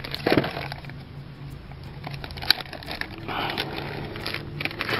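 Cardboard box and clear plastic bag rustling and crinkling as a new thermostat housing is taken out by hand, with scattered small clicks and one sharper click about halfway through.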